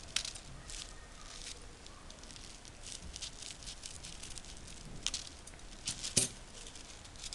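Scissors snipping through folded crepe paper: a run of short, crisp, irregular cuts as the petal tips are shaped, with one louder click about six seconds in.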